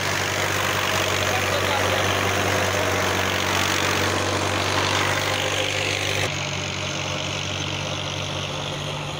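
Diesel tractor engine running steadily as it pulls a rotary tiller through the soil, a constant low drone with a rougher noise above it. The sound becomes a little quieter about six seconds in.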